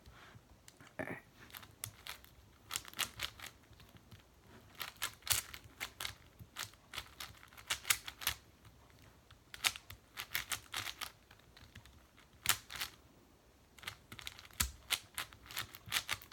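Plastic clicking and clacking of a large speedcube's layers being turned by hand, in quick runs of clicks with short pauses between them.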